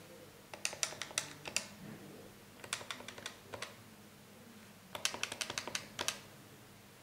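Plastic keypad buttons of a Cisco IP Phone 7975 clicking in three quick runs of presses. This is multi-tap text entry: each run steps repeatedly through the letters on one key to pick a single character.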